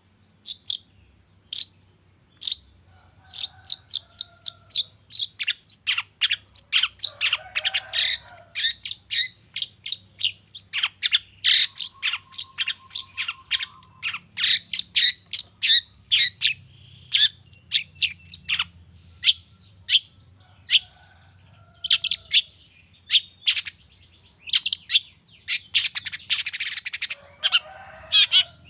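Long-tailed shrike (cendet) calling in a rapid run of short, sharp, high chirps, several a second, broken now and then by lower, harsher rasping notes and one held whistle about twelve seconds in. This is a pancingan lure recording meant to set caged cendet calling.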